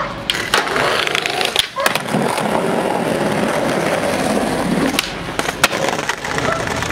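Skateboard wheels rolling over pavement, a steady gritty rumble broken by several sharp clacks of the board striking the ground.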